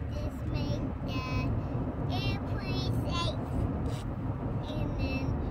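Young child singing in short, high-pitched phrases, over the steady low road rumble of a moving car's cabin.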